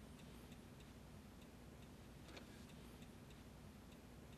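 Near silence with faint, regular ticking, about two ticks a second.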